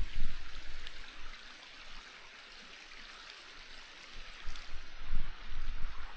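Steady hiss of a flowing stream, with low wind and movement rumble on the microphone of an action camera worn by a dog, fading out about a second in and building again from about four seconds in.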